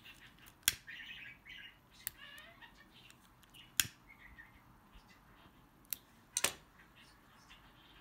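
Several sharp clicks, one just before four seconds in as a lighter is struck to singe the edge of a satin ribbon petal. Faint high chirping calls come in between, near the start.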